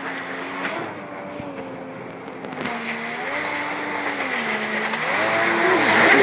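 Jet ski engine running at speed, its pitch dipping and climbing again as it turns, growing louder near the end as it swings in close throwing spray.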